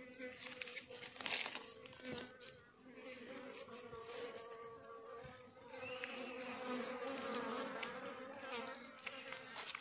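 Flies buzzing close by, a steady, slightly wavering drone that comes and goes in strength, with a few sharp clicks.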